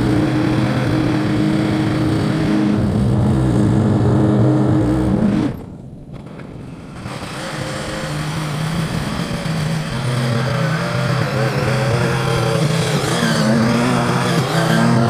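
Small gasoline engine of a landscaping power tool running steadily. Its sound drops away sharply about five seconds in, then builds back up over a few seconds, its pitch wavering as it comes back.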